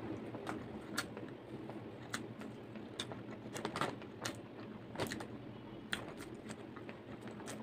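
A banana being peeled and eaten: soft, scattered clicks of the peel tearing and of chewing, about one a second.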